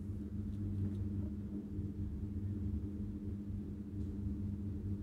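A steady low hum with a fixed pitch, like a running motor or appliance.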